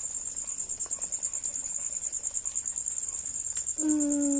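Cricket chirping in a steady, fast, high-pitched pulsing trill. A voice speaks briefly near the end.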